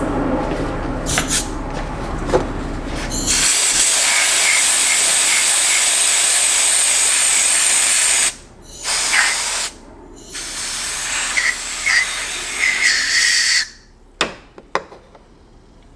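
Loud, steady hiss of rushing air in two long spells with short breaks between them, cutting off sharply near the end, after a few seconds of low rumbling handling noise. A few small clicks follow.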